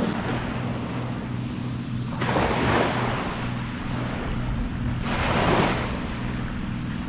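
Surf washing onto a beach, with two waves swelling up and fading about two seconds in and about five seconds in, and wind on the microphone.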